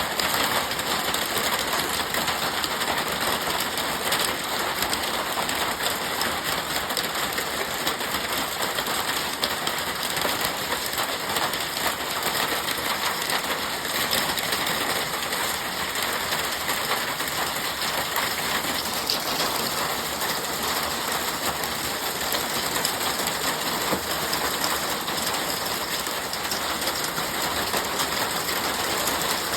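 Hailstorm: a dense, steady clatter of many small hailstones striking the ground and parked cars.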